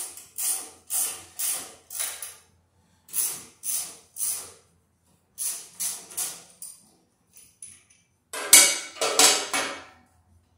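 Ratchet wrench clicking as a bolt is worked loose, in short strokes about two a second. It comes in three runs with brief pauses, then a louder run of strokes near the end.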